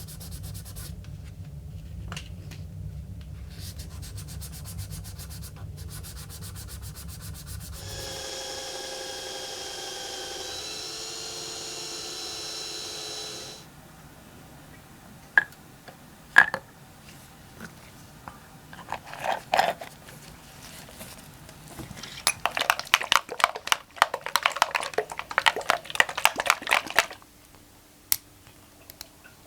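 A small power tool runs for about thirteen seconds, its pitch wavering in the last five, then stops. A few sharp clicks follow, then about five seconds of rapid hand-sanding strokes on the lure blank.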